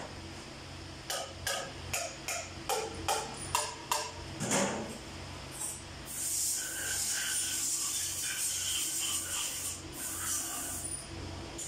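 A run of about ten sharp metal taps over four seconds as a Cummins QST30 cylinder head is worked at the bench, then a steady high hiss for about four seconds. A low steady hum from the shop's pedestal fans runs underneath.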